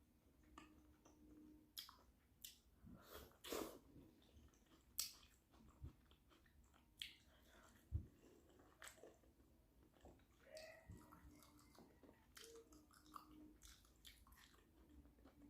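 Close-miked mouth sounds of someone eating a shrimp boil: chewing and biting, with scattered wet smacks and clicks.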